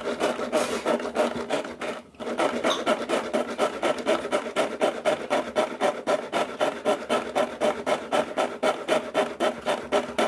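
Wonderchef 5-blade pull-string chopper worked with quick repeated pulls, about four strokes a second, its blades whirring and rasping through onion pieces in the plastic bowl. There is a brief pause about two seconds in.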